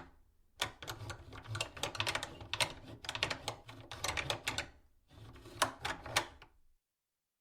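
Metal door latch being forced back and forth: rapid runs of sharp metallic clicks and rattles in three bursts with short pauses, stopping abruptly near the end.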